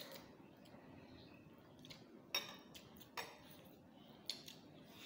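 A few faint, sharp clinks of metal forks against glass bowls as noodles are eaten, the clearest about halfway through and again near the end.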